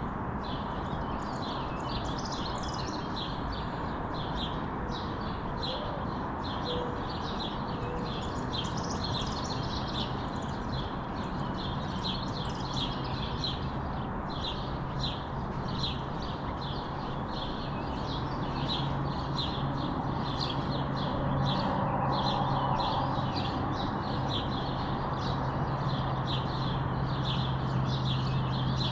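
Birds chirping in a quick, steady series, about two or three short chirps a second, over a constant low background noise. A low hum comes up about two-thirds of the way through.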